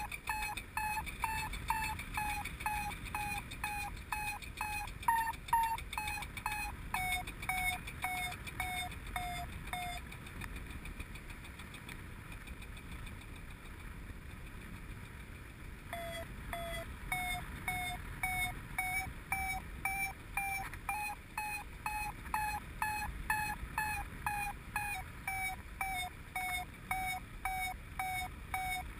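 Paragliding variometer giving its climb tone: rapid short beeps whose pitch sinks until they stop about ten seconds in, then start again lower about six seconds later and rise in pitch, the sign of lift weakening, dying out and then building again. Low wind rumble on the microphone underneath.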